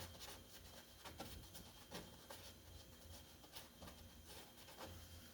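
Faint scratchy strokes of a small paintbrush on canvas, over a steady low hum.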